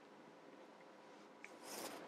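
Near silence: room tone, with a faint tick and a short soft rustle near the end.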